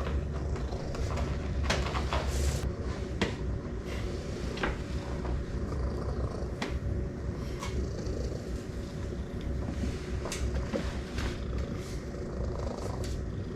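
A calico cat purring steadily close to the microphone, a low pulsing rumble, with scattered light clicks and knocks.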